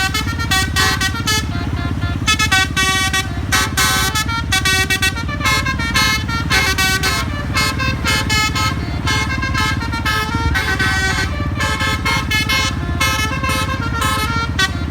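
Basuri telolet air horn on a bus playing a tune in quick, stepping notes, over the low rumble of the bus's engine running.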